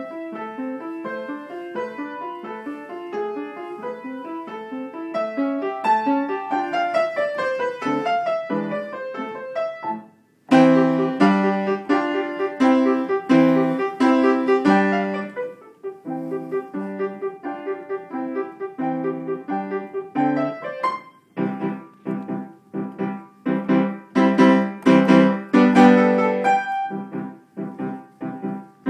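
Upright piano played at a lively pace: fast runs of notes, one falling from high to low, then after a brief break about ten seconds in, loud repeated chords alternating with softer passages.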